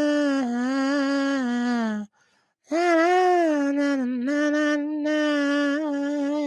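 A man humming or singing wordless long held notes into a close microphone, in a fairly high, steady pitch with slight wavers, breaking off once about two seconds in before taking up the note again.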